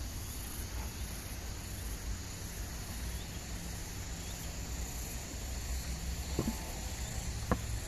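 Steady outdoor background: an even, high hiss over a low rumble, with two faint clicks near the end.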